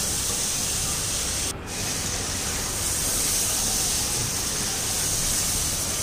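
Chicken pieces sizzling steadily as they fry in hot oil in a pot; the sizzle drops out for a moment about a second and a half in.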